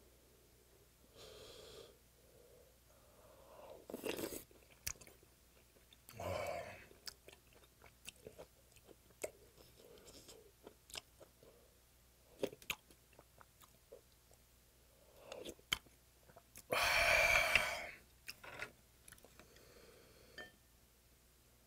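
A person eating hot yellow stingray soup: breathy slurps of broth from a spoon, wet chewing and lip-smacking clicks. The loudest breathy rush, about a second long, comes near the end.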